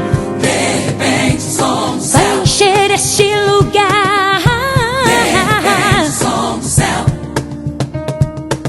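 Gospel song backing track: a full band with drums under a sung line that wavers in pitch through the middle, then a run of sharp drum hits near the end.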